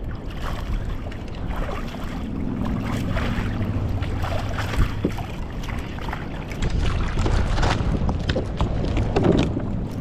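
Wind buffeting the microphone and water splashing around a fishing kayak on a choppy sea, with scattered knocks and clicks.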